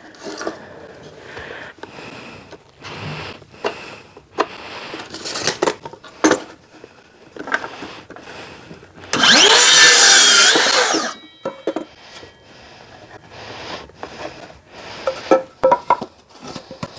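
Power saw cutting through a length of timber for about two seconds near the middle, its motor pitch sagging and recovering under the cut. Scattered knocks and clatter of timber being handled come before and after it.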